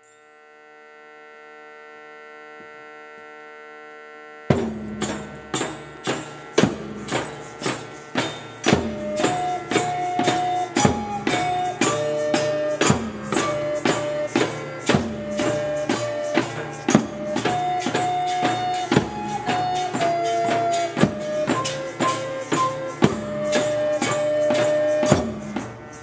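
Intro music: a held drone fades in, then about four and a half seconds in a steady percussion beat starts with a melody over it, fading out near the end.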